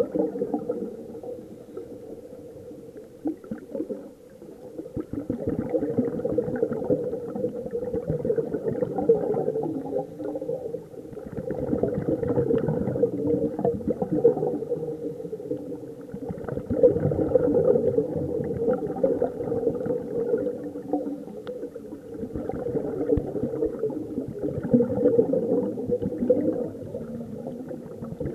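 Scuba regulator breathing heard underwater: muffled bubbling of exhaled air that swells and fades in slow waves about every five to six seconds.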